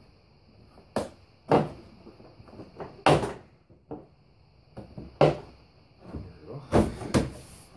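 Hollow plastic clunks and knocks from a Polaris Sportsman 400 ATV's front plastic body panel being pushed and shifted into place over the frame: about six separate knocks at uneven intervals, the longest about three seconds in.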